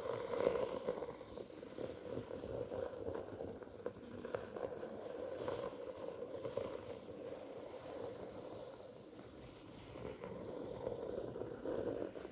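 Rapid, continuous scratching close to the microphone: a fast, rough rasping that runs on without pause and dips slightly around two-thirds of the way through.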